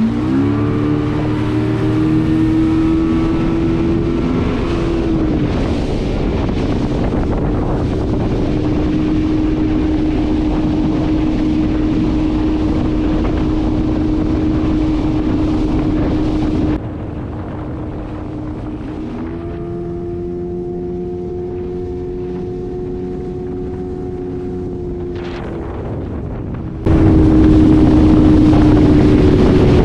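Outboard motor driving a small boat at speed, winding up with a rising pitch and then holding a steady drone, under the rush of water and heavy wind on the microphone. The sound drops and jumps abruptly twice where shots are cut together, and the engine winds up once more about two-thirds of the way in.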